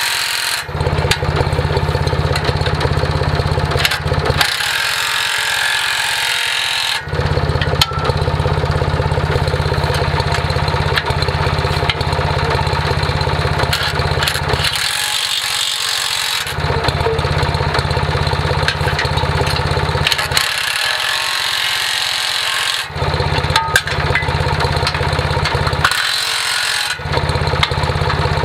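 Cordless impact driver running in long bursts of several seconds, with short pauses between them, as it tightens the bolts on a disc harrow's gang mount.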